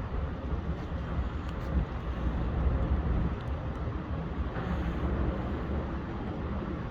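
Wind buffeting the microphone: a continuous low rumble that swells and dips unevenly, with no clear tones.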